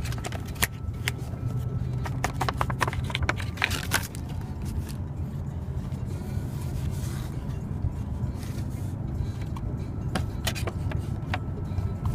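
Clicks, taps and scrapes of a yo-yo's packaging being handled and opened, in quick clusters over the first four seconds and again from about eight to eleven seconds in, over a steady low rumble.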